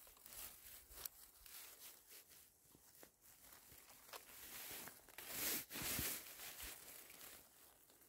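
Faint rustling and crackling of forest-floor litter during mushroom picking, with scattered small clicks and a louder rustle about five and a half seconds in.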